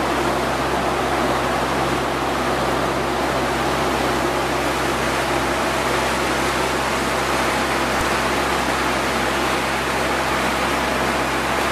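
Motorboat under way: a steady engine drone under an even rush of water and wind, unchanging throughout.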